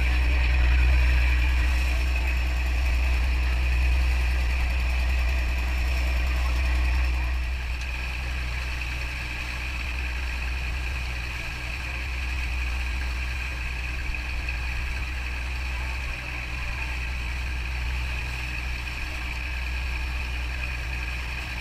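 Fishing boat's engine running steadily under way, a deep, even hum; it drops a little in level about seven seconds in.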